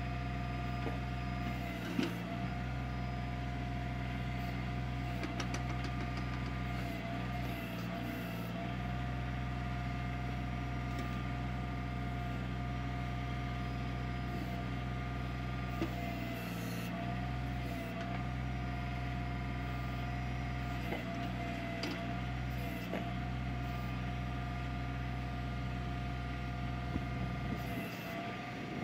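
Kioti CK25 compact tractor's diesel engine running steadily while the backhoe is worked, with a steady high whine over the engine note. The engine note dips briefly several times, and a few sharp knocks come through, the loudest about two seconds in.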